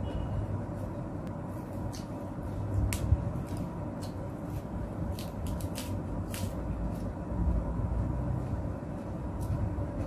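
Crisp lettuce leaves being handled and chewed: scattered sharp crunches and crackles over a steady low rumble and a faint hum.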